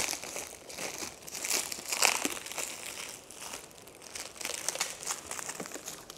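Plastic packaging crinkling and rustling in irregular bursts as nebuliser parts are handled, loudest right at the start.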